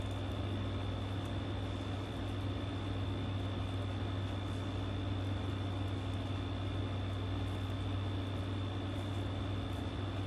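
Steady low room hum over an even hiss, with a faint high-pitched whine. There are no distinct events.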